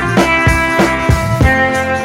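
Music with guitar and a steady drum beat.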